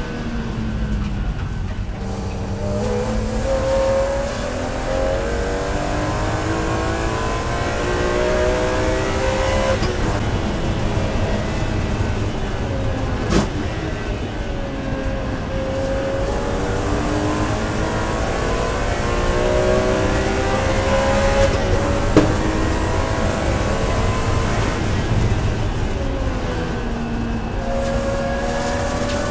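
BMW E46 M3's S54 3.2-litre straight-six at racing revs, heard from inside the cockpit, its pitch climbing under acceleration and falling under braking several times over. Two short sharp clicks cut through, a little under halfway and about three quarters of the way in.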